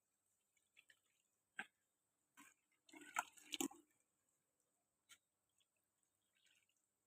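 Faint, scattered drips and small splashes of water, with a denser run of splashing about three seconds in.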